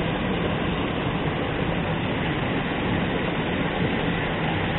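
Steady rushing of water running through an irrigation canal weir, an even unbroken noise with no distinct events.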